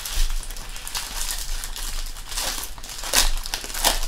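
Silver foil trading-card pack wrappers crinkling and crumpling as hands tear them open, an irregular crackly rustle with sharper crackles about three seconds in and again near the end.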